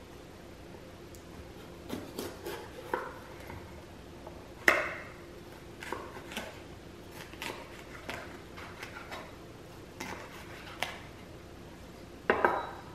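Santoku knife cutting a red bell pepper on a bamboo cutting board: irregular knocks of the blade on the wood, the loudest about five seconds in, and a quick run of chops near the end as the strips are diced.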